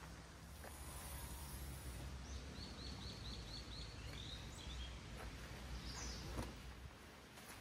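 A wild bird singing a quick run of about eight short, high repeated notes, about four a second, followed a couple of seconds later by a single short call, over a steady low background rumble.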